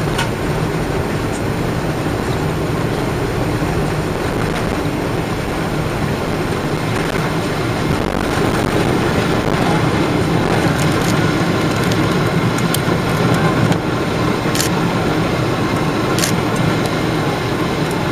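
Inside the cabin of a Boeing 777-300ER on its takeoff roll: the GE90-115B engines at takeoff thrust with a steady runway rumble. The noise builds slightly about eight seconds in, and the plane lifts off partway through.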